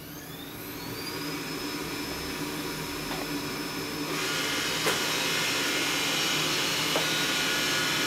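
Xiaomi Mi Robot Vacuum starting up: its suction fan spins up with a rising whine that levels off about a second and a half in, and the running gets louder about four seconds in as it sets off. A few light clicks.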